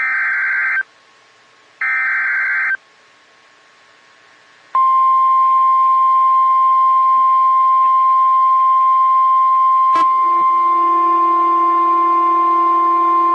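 Emergency Alert System header on NOAA Weather Radio: two of the screeching digital SAME data bursts, each about a second long with a second's pause between them, then a single steady high alert tone for about nine seconds. About ten seconds in there is a click, after which a lower second tone joins the alert tone. This sequence signals the start of a new weather warning broadcast.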